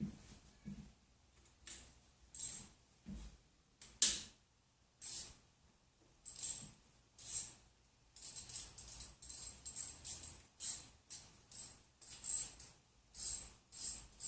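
Short bursts of metallic clicking and rattling, spaced irregularly at first and coming quickly, about three a second, from about eight seconds in.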